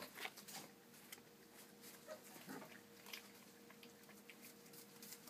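Faint scuffling and small clicks of month-old chocolate Labrador puppies moving about, with a brief faint puppy whimper about two and a half seconds in.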